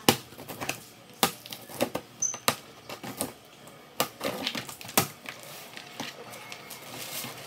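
Cardboard shipping box being opened by hand: a series of sharp taps and knocks on the box, about one a second, with scraping and rustling of cardboard in between.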